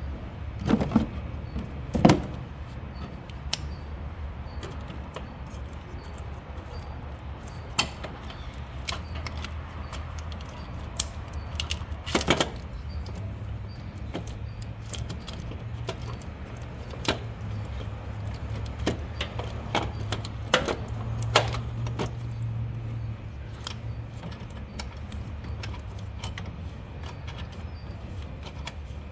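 Hand tools and metal parts clinking and knocking at irregular intervals, with a few louder knocks and a longer rattle about twelve seconds in, over a steady low hum.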